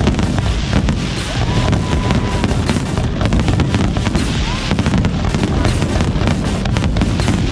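Fireworks display: a dense, unbroken run of bangs and crackles over deep booms.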